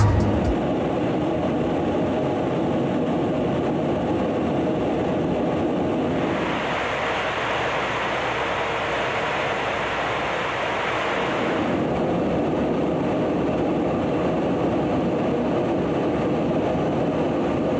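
Aircraft in flight during aerial refuelling: a steady rush of engine and wind noise. For several seconds in the middle it turns hissier and thinner.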